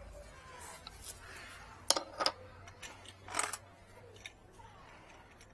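Metal tools and stainless pipe fittings being handled: two sharp metallic clicks about two seconds in, then a short scrape, among lighter clinks.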